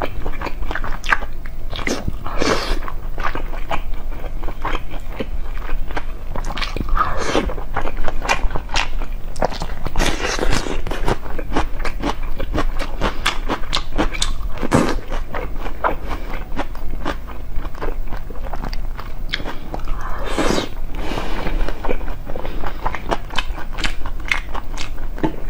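Close-miked mukbang eating: a person biting into and chewing braised pork belly, with many quick wet smacks and bites throughout.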